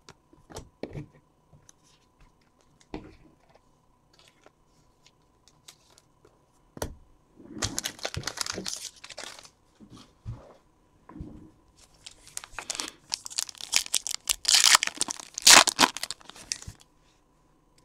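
The foil wrapper of a trading-card pack being torn open and crinkled by hand. A few light clicks come first, then crinkling in two spells, the second longer and loudest about three-quarters of the way through.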